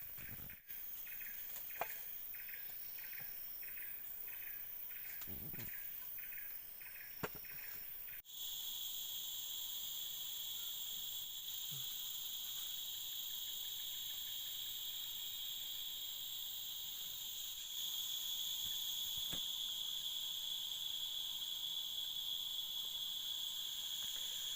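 Forest insects calling. First comes a rhythmic pulsed chirping, about two pulses a second. After a cut, a steady high-pitched drone takes over: the kenyinyit, a cicada whose call is the sign that evening is coming on. The drone grows louder about two-thirds of the way in.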